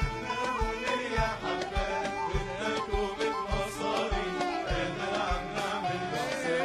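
Background music: an Arabic folk song playing with a steady drum beat and melodic instruments.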